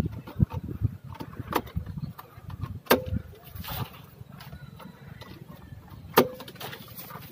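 Sharp knocks of handling against a metal pipe rail where a pole is lashed, a few scattered taps and two louder knocks, about three and about six seconds in, each with a short ring.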